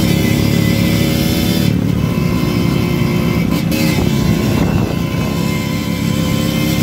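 Small dirt bike engine running steadily as the bike is ridden along.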